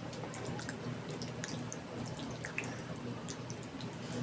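Close-miked eating sounds: wet chewing and lip smacks while eating khichdi and egg curry, an irregular run of small moist clicks.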